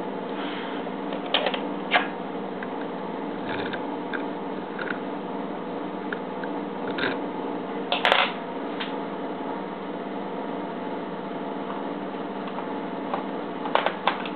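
A steady low machine hum with a few scattered small clicks and taps; the loudest cluster of clicks comes about eight seconds in.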